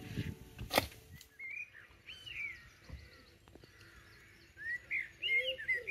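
Small birds singing in short repeated chirps that grow busier near the end, with one sharp click about a second in.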